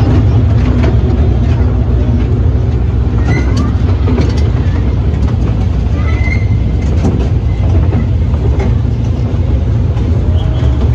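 Toy train running on its narrow-gauge track, heard from inside its open carriage: a loud, steady low rumble from the engine and running gear, with irregular clicks and knocks from the wheels and rattling carriage.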